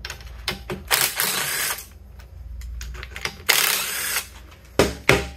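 A cordless drill runs in two short bursts, backing out the steel bolts of a Dana 60 axle's differential cover, with small clicks of the bolts and tools between. Near the end come two sharp hammer blows, striking to break the cover loose.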